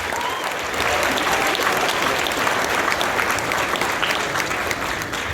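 Audience applauding in a large hall, a dense patter of many hands clapping that thins out near the end.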